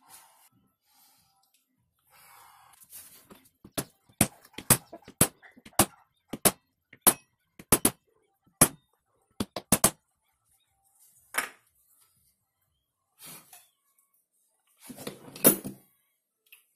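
Hammer blows tapping a part into a V-50 moped engine's aluminium crankcase: about a dozen sharp taps at uneven spacing over some six seconds, one more tap a little later, and a short clatter of handled parts near the end.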